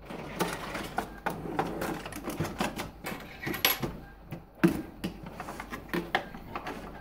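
Screwdriver turning out a screw from the plastic casing of an Epson XP-342 printer, with irregular clicks, scrapes and plastic knocks as the tool works and the housing is handled; one louder knock about halfway through.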